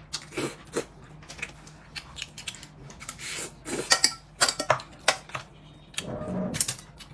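Eating utensils clinking and scraping against bowls and dishes during a meal, a scatter of light knocks and clicks.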